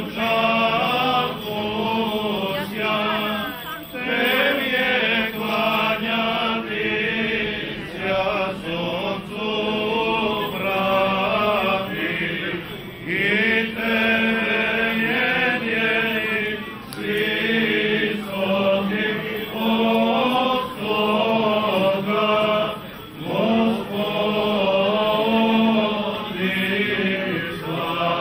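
Serbian Orthodox liturgical chanting by male clergy, sung in long melodic phrases with brief pauses between them.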